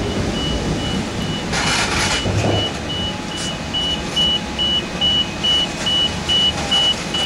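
Reversing alarm beeping at about two and a half high beeps a second, growing louder, over a running engine's low rumble. A short hiss about a second and a half in.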